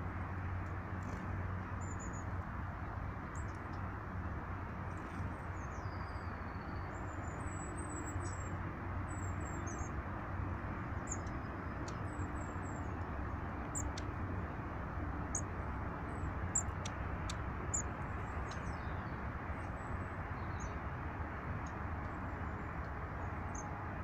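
Small songbirds giving many short, high, thin chirps and calls, scattered throughout, over a steady low rumble of background noise.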